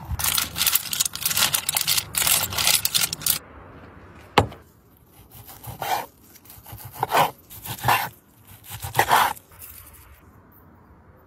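Dense crackling for the first three seconds or so, a single sharp knock, then a knife sawing through a grilled steak on a wooden cutting board in four rasping strokes.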